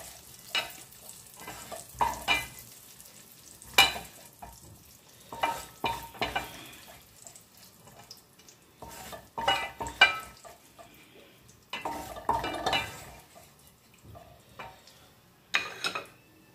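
Wooden spoon knocking and scraping against a frying pan and plate as fried pancetta is scooped out, in irregular strokes, over a faint sizzle of hot fat. The loudest knocks come about four and ten seconds in.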